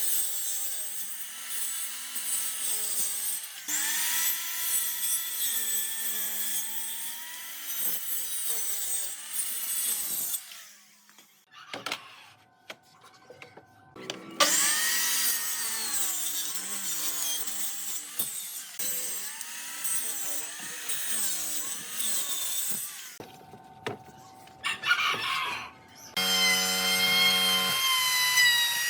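A power tool cutting wood, its motor pitch sagging under load and recovering. It runs in long passes with two brief quieter breaks.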